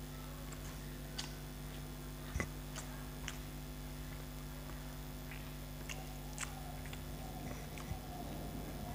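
Eating rice by hand from a steel plate: scattered soft clicks as fingers mix the food on the plate, with chewing mouth sounds, over a steady low hum.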